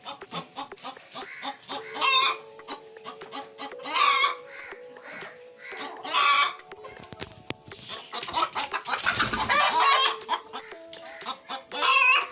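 Hen calling: loud clucking calls about every two seconds, with one longer stretch of calling near the middle and many short clicks between the calls.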